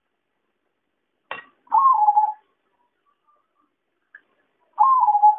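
Zebra dove (perkutut) cooing: two short coos about three seconds apart, each a quick rise in pitch that then settles on a slightly lower held note, the first opened by a short sharp note.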